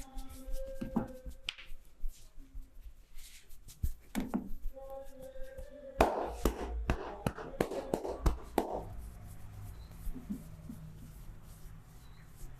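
Massage hand sounds: scattered sharp slaps and taps, then a fast run of chopping strikes on the body about six seconds in that lasts a couple of seconds.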